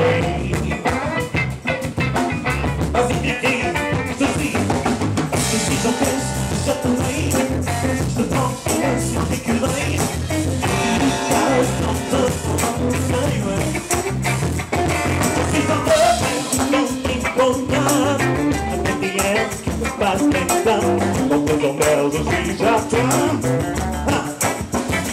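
Live funk band playing with drum kit, bass and guitar, a steady groove throughout.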